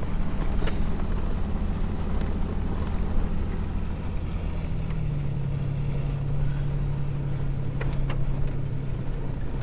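Jeep Wrangler driving on a dirt track, heard from inside the cab: a steady engine hum under tyre and road noise. The engine note drops slightly about five seconds in.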